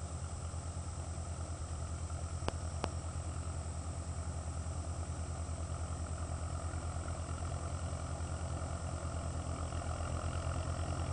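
Tractor engine running steadily with an even, rapid pulse, getting a little louder near the end, with a couple of faint clicks about two and a half seconds in.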